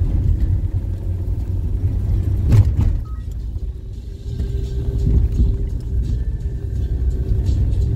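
Car engine and road rumble heard from inside the cabin while driving, with a single loud thump about two and a half seconds in. The rumble drops off briefly and then picks up again with a steady hum.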